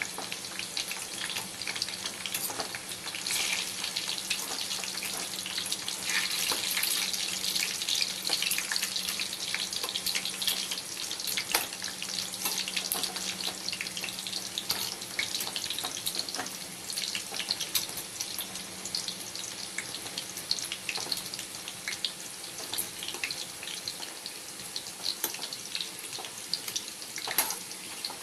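Parboiled potato chunks sizzling and crackling in hot oil in a pan, with scattered sharp pops, loudest in the first half.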